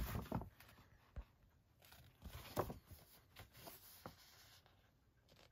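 Folded paper poster being opened out by hand: faint, scattered paper rustles and crackles, with a few sharper crinkles along the way.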